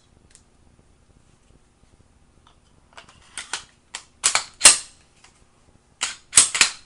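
Walther P99 QA pistol's slide and frame being put back together and worked: a few faint ticks, then from about three seconds in a series of sharp metallic clicks and snaps. There is a loud pair about a second apart, then a quick run of three near the end, as the slide goes onto the rails and is run back and forth in a function check.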